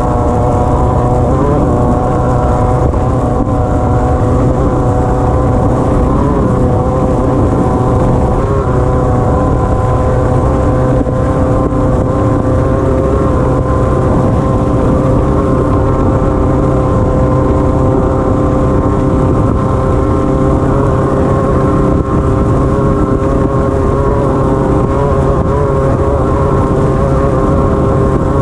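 Off-road race car's engine running hard at nearly constant revs, with small dips in pitch now and then, over a steady low rumble, heard from on board the car.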